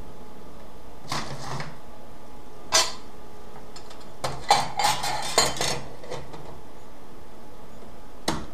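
Stainless steel buckler parts (a hammered dome and a flat sheet-metal plate) being handled on a steel workbench, clanking and scraping against it. A few knocks come first, then a cluster of clinks and rattles around the middle, and one more knock near the end.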